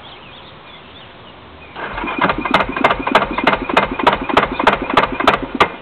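Yamaha YFM350 Warrior's single-cylinder engine being cranked over by its starter, slowly and unevenly, about three compression strokes a second for about four seconds, without firing; it cranks harder because of a hotter 450 cam. The cranking starts about two seconds in and stops suddenly near the end.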